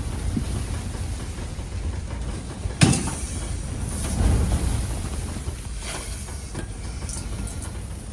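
Low, steady rumble of wind buffeting, with one sharp knock about three seconds in and a brief swell in the rumble a second later.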